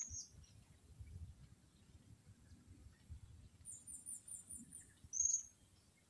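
Blue-crowned hanging parrot (serindit) calling with thin, high-pitched notes: one call at the start, a quick run of about six short notes just under four seconds in, and a louder call about five seconds in.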